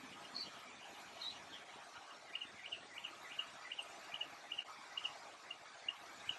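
Faint high chirps from a small animal outdoors, repeated evenly about two to three times a second from roughly two seconds in, over a low steady hiss.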